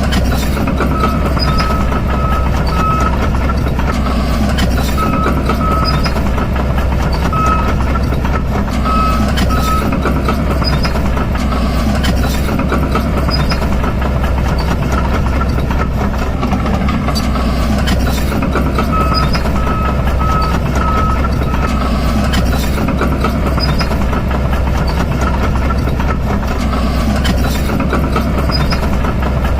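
Heavy vehicle engine running steadily, with a reversing alarm beeping in short runs of a few beeps several times.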